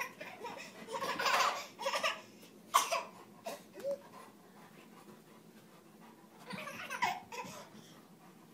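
A baby laughing in several short bursts during the first four seconds, then once more about seven seconds in.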